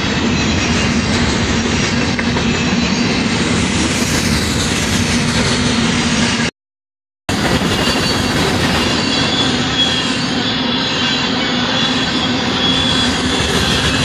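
Freight train of covered hopper cars rolling past close by: steady wheel-on-rail rumble and clatter, with a faint high wheel squeal in the second half. The sound breaks off to silence for under a second about six and a half seconds in, at an edit cut.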